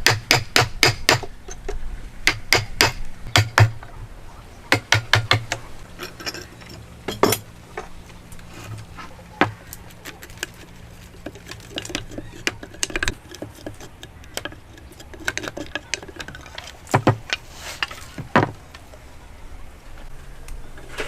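Hand tools knocking on wood during hand joint-cutting: a quick run of hammer blows over the first five seconds, then scattered single knocks and lighter clicks.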